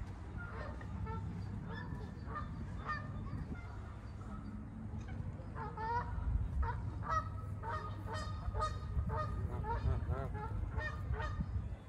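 Canada geese honking: a run of short, repeated calls, sparse at first and coming thick and fast in the second half, over a low steady rumble.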